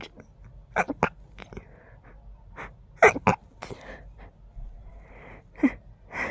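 A rapid series of short, stifled sneezes, several in quick pairs, the loudest pair about three seconds in, with breaths between. This is an allergy sneezing fit.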